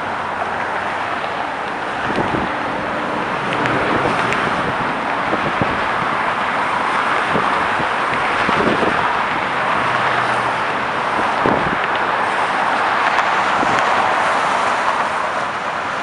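Busy road traffic passing close by: a steady wash of tyre and engine noise that swells and fades as cars and trucks go past.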